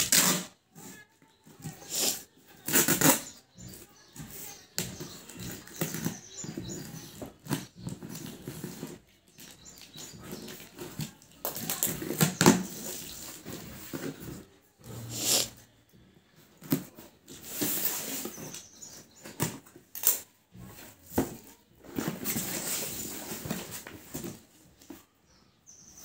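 Cardboard box being opened and unpacked by hand: irregular rustling, scraping and tearing of cardboard, packing tape and paper.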